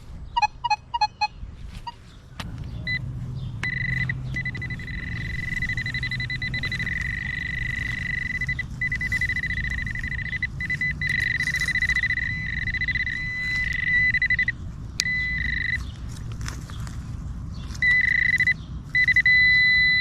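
Metal detector sounding its target tone: a short run of quick beeps near the start, then a steady high-pitched tone that drops out briefly a few times and returns near the end, signalling a metal target close by.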